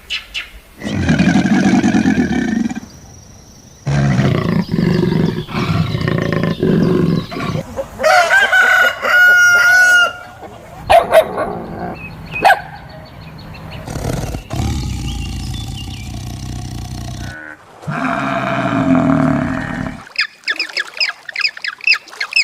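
A string of different farm animal calls following one after another with abrupt changes between them, among them a long pitched call about eight seconds in and a run of rapid short calls near the end.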